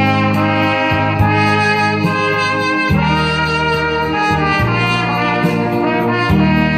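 Instrumental music: a horn-like melody of long held notes over a steady bass accompaniment.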